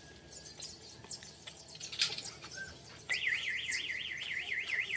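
Birds chirping faintly, then about three seconds in a car alarm starts up: an electronic siren tone warbling rapidly up and down, about six sweeps a second.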